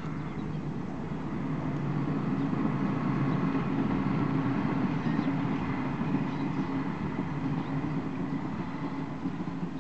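Diesel engines of a CP Class 592 diesel multiple unit running as the train passes, a steady low hum with a faint whine above it that swells over the first few seconds and then eases off.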